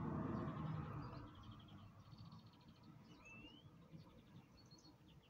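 Small birds chirping, with repeated quick trills and one short rising whistle about three seconds in. A low rumble is loudest in the first second, then fades.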